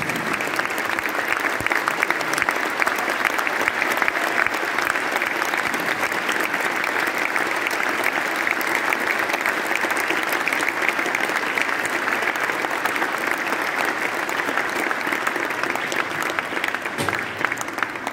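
Audience applauding: dense, steady clapping that turns slightly thinner and more separate near the end.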